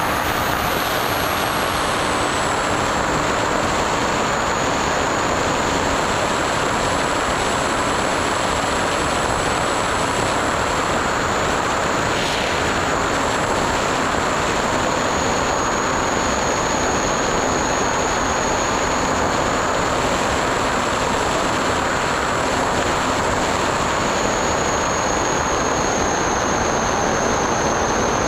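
Skyhunter FPV model plane's electric motor and propeller running steadily in flight, heard from the onboard camera as a constant rush of air and propeller noise with a thin high motor whine that dips slightly in pitch now and then.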